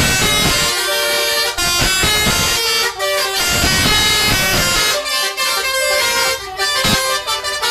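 Bus telolet horn (Basuri type) playing a melody: a run of loud, reedy held horn notes stepping from pitch to pitch, in phrases with short breaks between them.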